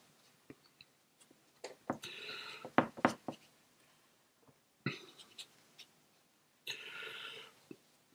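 Quiet handling sounds of watercolour painting: a few light clicks and knocks of the brush and palette, the loudest about three seconds in, and three short rasping strokes about two, five and seven seconds in.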